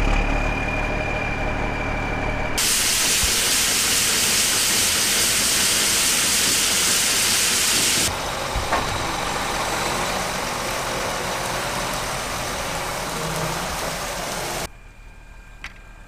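A truck engine idles briefly. Then a loud, steady hiss of shelled corn pouring from an auger spout into the grain trailer starts suddenly, goes a little duller about eight seconds in, and drops away sharply near the end.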